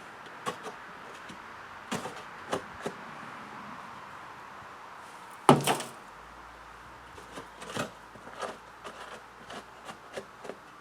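Scattered wooden knocks and clatters of boards being handled during building work, with one loud thump about halfway through.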